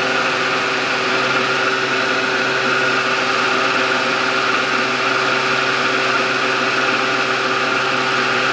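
Milling machine spindle running steadily at speed, turning an edge finder: a constant hum with a higher steady whine.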